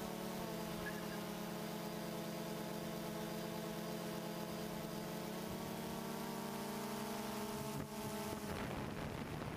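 DJI Phantom 2 quadcopter's motors and propellers running at a steady pitch in flight, heard from the GoPro mounted on the drone. Near the end the steady tone breaks up into a rougher rush of noise.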